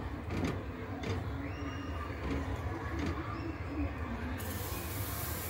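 Metal ladle stirring thin batter in a glass bowl, with a few light clinks against the glass, then a steady hiss starting about four seconds in as the batter is poured into the hot pan.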